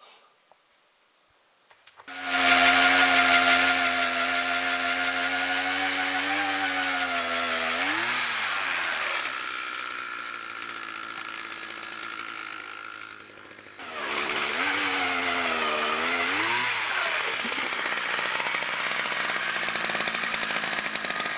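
Gas-powered ice auger drilling a hole through lake ice: its small two-stroke engine starts abruptly about two seconds in and runs loud and steady at high revs. Its pitch dips and recovers a couple of times, and it drops out briefly two-thirds of the way through before running on.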